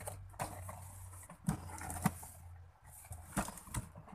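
A large cardboard appliance box and its packaging being handled: rustling broken by about five sharp knocks and bumps.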